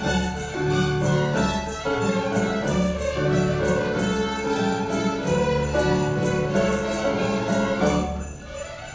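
Symphony orchestra playing a lively light-orchestral piece, with sleigh bells shaken on a steady beat over the strings and winds. The music thins out and drops in loudness briefly near the end, then the full orchestra comes back in.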